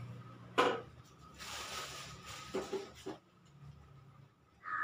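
Handling knocks: a sharp knock about half a second in, a short rustling hiss, then two duller knocks a little after the middle.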